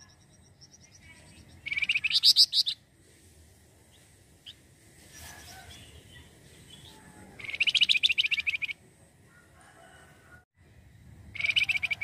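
Flamboyan (wergan jawa) songbird giving three bursts of rapid chattering notes, each about a second long, with fainter calls between them.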